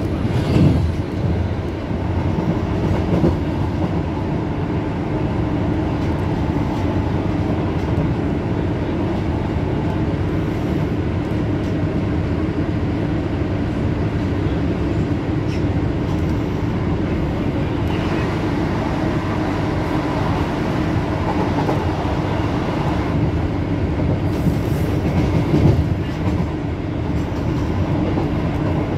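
Inside a Class 159 diesel multiple unit on the move: a steady rumble from the wheels on the rails and the underfloor diesel engine, with clickety-clack over rail joints and points.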